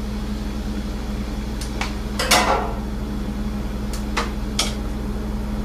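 Steady low electrical hum with hiss. It is broken by a few light clicks and taps, with one short rustling noise about two seconds in.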